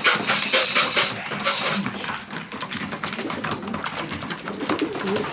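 Pigeons in a loft cooing, with a flurry of noisy rustling and clattering in the first two seconds that settles into scattered small clicks.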